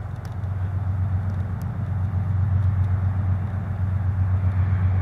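Low, steady vehicle rumble that grows louder over the first two or three seconds, then holds.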